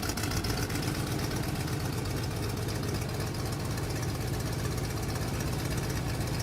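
Airplane engine running steadily with a fast, even pulsing drone, as the plane takes off to fly loops.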